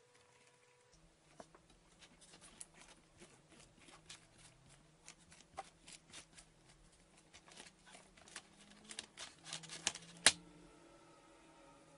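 Clear plastic protective film being peeled off a honeycomb eyeshadow palette, crackling and crinkling in quick irregular clicks that start about a second in and grow denser, with one sharp, loud crack near the end.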